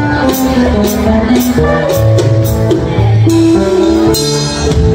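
Live band music: a drum kit with regular cymbal strokes over guitars and low bass notes. A cymbal rings out bright and dense toward the end.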